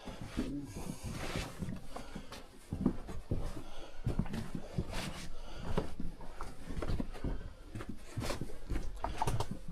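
Footsteps crunching and scuffing on the rocky floor of a mine tunnel, an irregular run of knocks and scrapes with the close, boxed-in sound of the tunnel.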